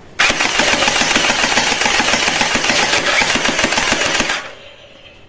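Toy gun firing on full auto: a loud, rapid mechanical rattle that starts a fraction of a second in and stops after about four seconds.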